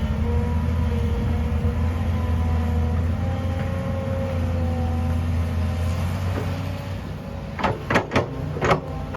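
Tractor engine running steadily with a faint whine. Near the end come four or five sharp knocks.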